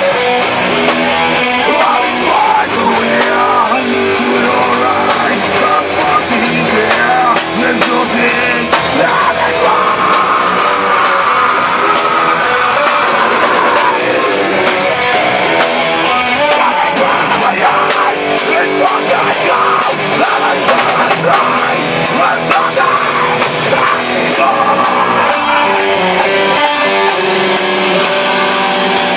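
Metal band playing live in rehearsal: distorted electric guitars over a drum kit, loud and continuous.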